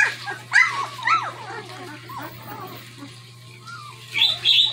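Newborn German Shepherd puppies whining and squealing in short, high cries that rise and fall. Three loud cries come in the first second, then fainter ones, and a sharp high squeal near the end.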